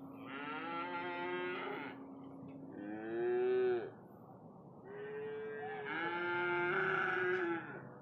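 Cattle mooing: three calls, the first about a second and a half long, the second shorter and loudest, and the third long and drawn out over nearly three seconds.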